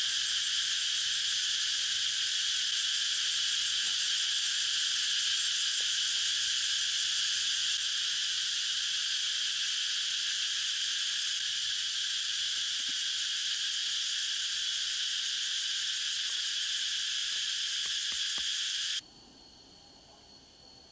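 A dense, steady chorus of insects buzzing and shrilling at a high pitch. It cuts off abruptly near the end, leaving a much quieter background with a faint thin whine.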